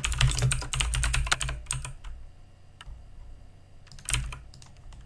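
Typing on a computer keyboard: a quick run of keystrokes over the first two seconds, then a single key a little before three seconds and a short burst of keys around four seconds in.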